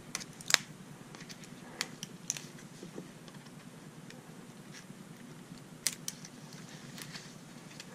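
Scattered sharp clicks and crackles of clear plastic packaging being cut and pried at with a serrated folding knife, the loudest about half a second in.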